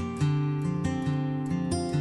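Acoustic guitar playing the intro of a country song, notes picked and strummed in a steady rhythm, with no singing.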